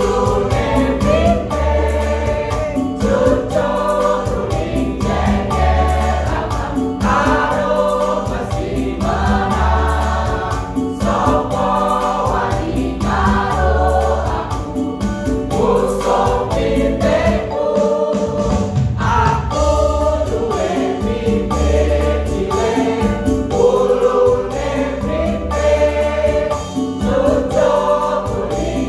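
Mixed choir of men and women singing an upbeat song together, over a low bass beat that pulses about every two seconds.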